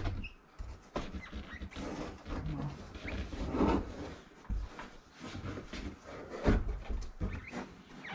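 A truck headliner board being worked out through the cab's door opening: irregular rustling and scraping of the board and its fabric against the roof edge and door trim, with several light knocks and bumps.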